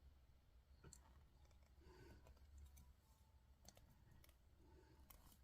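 Near silence: faint room hum with a few scattered soft clicks.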